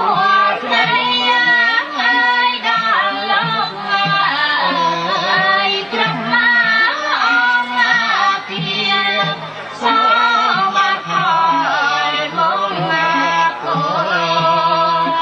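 Khmer traditional music for Apsara dance: a woman sings a bending, ornamented melody over instrumental accompaniment.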